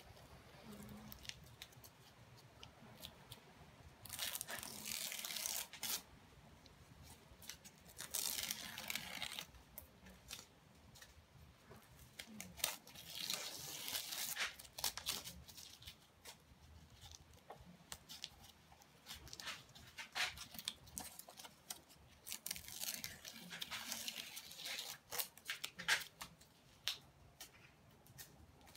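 Masking tape being peeled off the edges of a sheet of paper in several crackly pulls of one to two seconds each.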